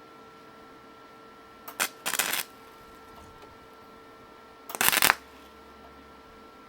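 Flux-core wire welder laying two short tack welds, each a brief crackle, about two seconds in and again about five seconds in.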